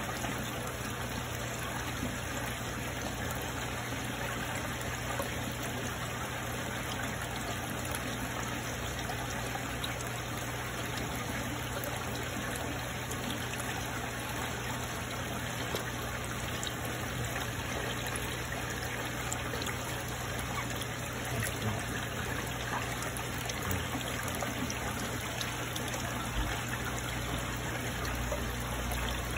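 Steady trickle of circulating water in a koi fry tank, over a low, even hum.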